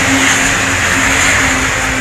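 Diesel pulling-vehicle engine held at high revs during a pull: a loud, steady engine note over a broad roar, easing slightly toward the end.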